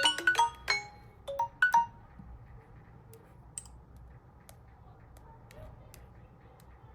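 A smartphone's alarm or ringtone melody, a quick run of chiming notes, stops about two seconds in. Faint scattered clicks follow.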